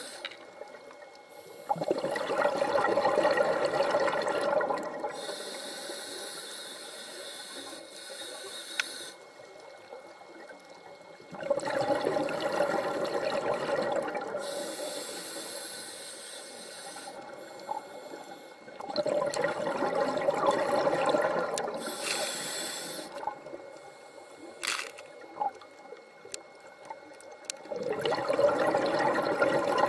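Scuba diver breathing through a regulator underwater: four bubbling exhalations about eight seconds apart, with a high hiss of inhaling between them.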